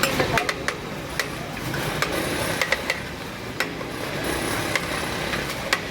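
Busy kitchen clatter: irregular clinks and knocks of utensils and containers over a steady background noise.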